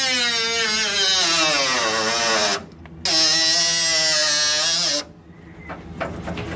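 Cordless compact cut-off tool cutting into a car's steel quarter panel. Its whine sinks in pitch as the wheel bites and stops about two and a half seconds in, then runs again at a steady pitch for about two seconds before stopping.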